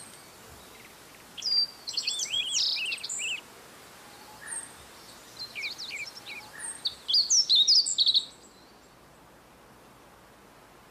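A small songbird singing two quick phrases of varied, high chirping notes, the first about a second and a half in and the second about four seconds in, falling silent about eight seconds in. Faint steady hiss underneath.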